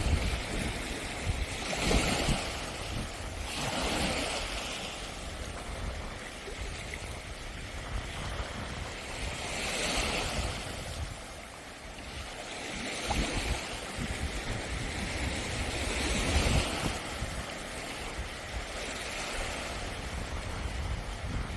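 Small waves washing up and draining back over a round-pebble beach, a hiss that swells every few seconds, with a low rumble of wind on the microphone.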